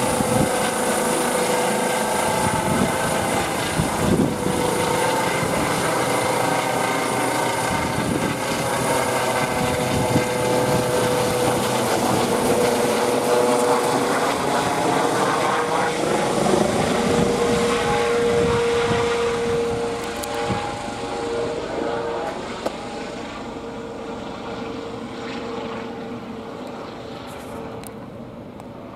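Eurocopter EC135 helicopter's twin turbines and rotors at take-off power, a loud steady whine with several held tones over the rotor noise. It fades during the last third as the helicopter climbs away.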